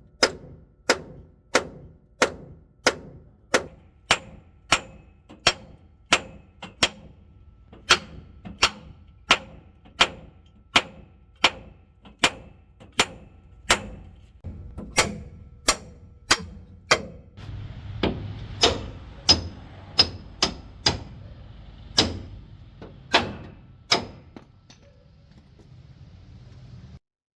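Hammer striking metal in a steady rhythm, about one and a half blows a second, each blow ringing briefly. A low steady hum joins for roughly the last ten seconds.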